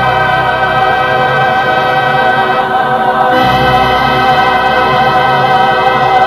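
Recorded Christian hymn: sung voices hold long notes over accompaniment, with a change of chord about three seconds in.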